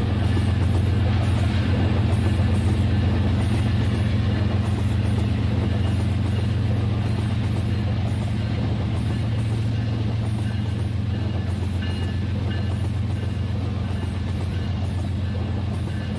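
Rail King toy train's small electric motor running steadily as it moves along the track: a continuous, even hum.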